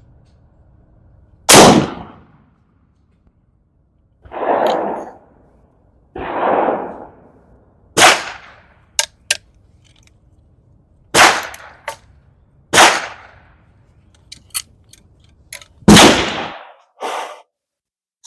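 Gunshots on a shooting range: about five loud, sharp reports at uneven intervals, two duller, lower-pitched reports, and a few faint sharp cracks in between.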